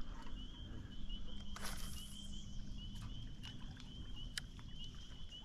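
A steady chorus of high-pitched chirps, several a second, goes on throughout. About a second and a half in there is a brief rustling swish, and a few light clicks.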